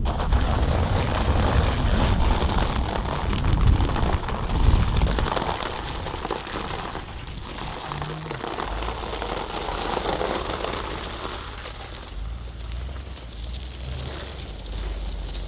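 Lifted single-cab Chevrolet Z71 pickup rolling over ice and frozen ground: tyre noise on the ice over a low rumble that is heavier for the first five seconds or so, then eases.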